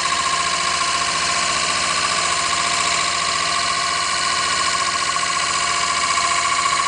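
CNC wood lathe running: a steady machine noise with a strong, even whine through it.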